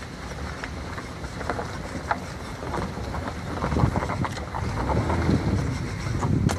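Wind rumbling on the camera's microphone, with scattered faint clicks and rustles of handling, growing louder toward the end.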